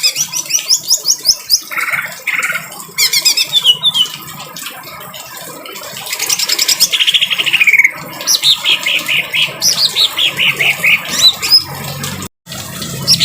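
Cucak ijo (green leafbird) singing in harsh, rapid phrases: fast runs of high notes, many falling in pitch, in several bursts, broken by a brief dropout near the end.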